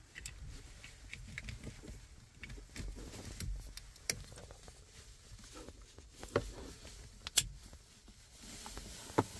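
Plastic wiring-harness connectors being handled and fitted together at the ignition switch: scattered small clicks and rustles, with one sharp click about seven seconds in.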